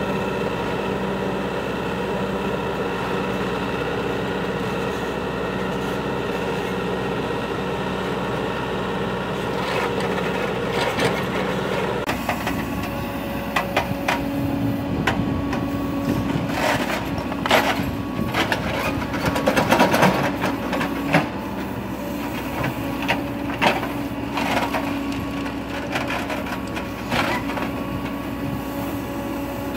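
Cat 428F backhoe loader's diesel engine running steadily. After about twelve seconds the backhoe bucket digs into rocky soil, with many sharp cracks and knocks of stone against steel over the engine hum.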